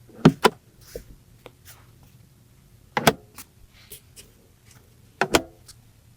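Sharp mechanical clicks and clunks from parts of a BMW i5 being worked by hand: a quick double click just after the start, another about three seconds in and a third near the end, with faint ticks between.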